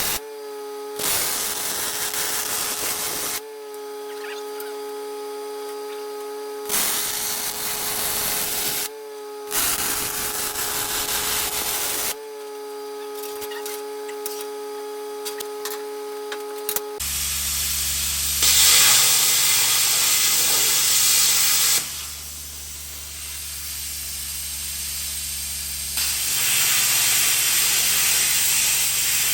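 Welder tacking steel leg tabs onto an air tank: three bursts of crackling hiss, each two to three seconds long, over a steady hum. About two-thirds of the way in, the sound changes abruptly to a lower machine hum with two more loud stretches of hiss.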